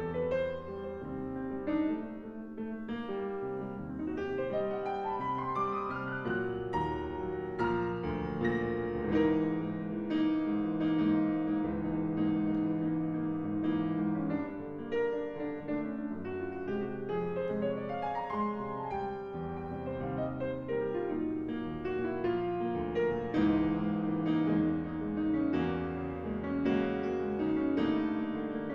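Steinway grand piano played solo, a dense flowing piece with fast runs. A quick rising run of notes comes about five seconds in, and another rises and falls back near the middle.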